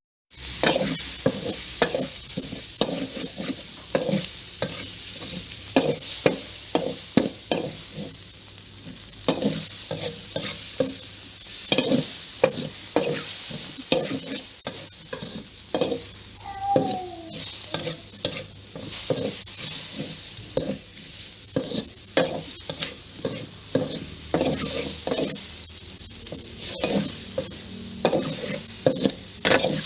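Food sizzling and frying in a pan while a utensil stirs it, with many quick clicks and scrapes of the utensil against the pan and a short squeak about halfway through.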